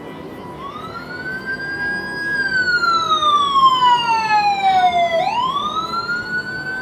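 Emergency vehicle siren wailing. Its pitch rises and holds, then falls slowly for about three seconds and climbs again near the end. It is loudest in the middle.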